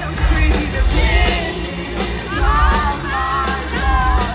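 Live pop-rock concert music: a band playing with a sung vocal over heavy bass.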